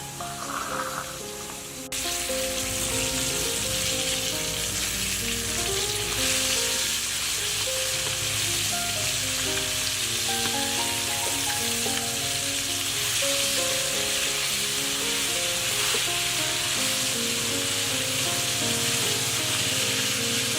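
Food frying in hot oil in a pan, a steady sizzle that starts abruptly about two seconds in. Background music plays under it.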